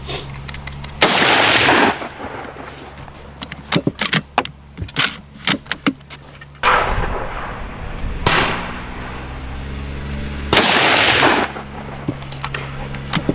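Savage 110 Tactical bolt-action .308 rifle fired three times, about four to five seconds apart, each shot followed by a short echo. Sharp metallic clicks between the first two shots are the bolt being worked to chamber the next round.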